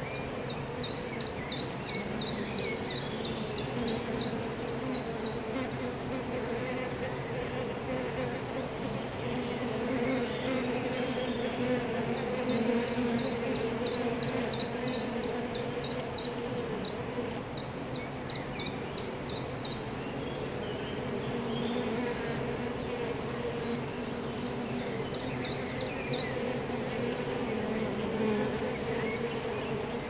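Honeybees buzzing at a hive entrance, a steady hum of many wingbeats that swells a little as bees fly in and out. Over it, a high rapid chirping, about four a second, comes in three runs.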